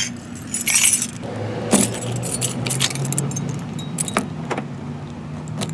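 A ring of metal keys jangling and clinking in a hand, in several separate bursts, over a steady low hum.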